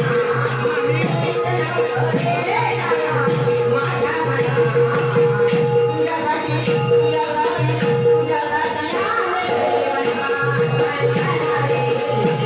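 Devotional bhajan-group music for a gavlan: one note held steadily under a steady drum beat, with jingling percussion throughout.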